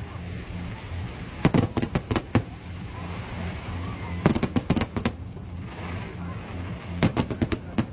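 Aerial fireworks bursting in quick volleys of sharp bangs, three clusters about three seconds apart.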